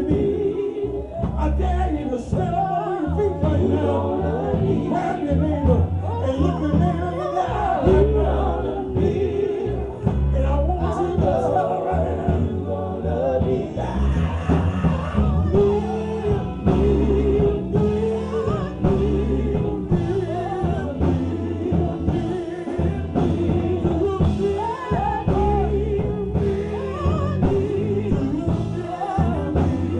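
Gospel singing with band accompaniment: several voices over a steady, rhythmic bass line.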